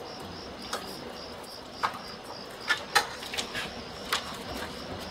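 A run of short sharp knocks from a stepladder as a man climbs down its rungs, over crickets chirping in an even pulse, about five a second.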